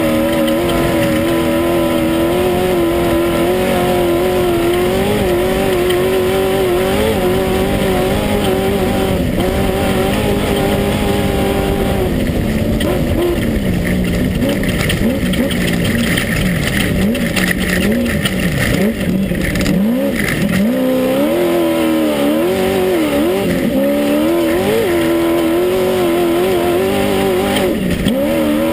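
Class 1 unlimited desert buggy's engine running hard at high revs, heard from inside the car, its pitch wavering over rough ground. About twelve seconds in the revs drop and wander lower for several seconds, then climb back up around twenty-one seconds.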